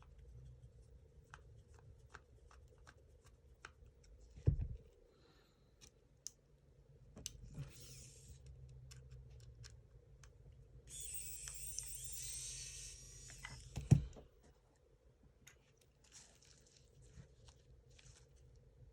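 Handling noises of small objects: scattered light clicks and ticks, a brief rustle, a longer scraping or rubbing sound of a few seconds, and two thuds, the louder one about fourteen seconds in.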